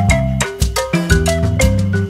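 Upbeat background music with a marimba-like mallet melody of quick struck notes over a steady bass beat.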